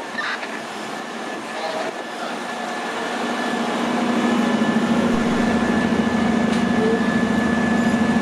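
Steady low drone of a running engine at the fire scene, with a thin steady whine above it. The drone comes in about three seconds in and grows louder about a second later.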